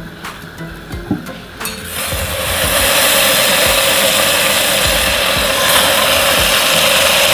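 Soaked seaweed (miyeok) hitting hot oil in a stainless steel pot and sizzling, loud and steady from about two seconds in, after a few light knocks.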